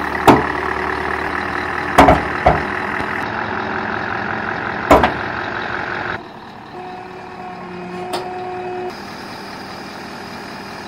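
Scania 143 V8 hooklift truck running its hydraulic hoist to drag a heavy container aboard: a steady drone broken by four loud bangs in the first five seconds. About six seconds in the sound drops off abruptly to a quieter steady running. The load is heavy enough to lift the truck's front wheels off the ground.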